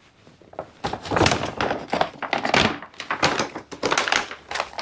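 Collapsible plastic 10-liter water storage cube being folded down by hand: a run of irregular plastic knocks and crinkles.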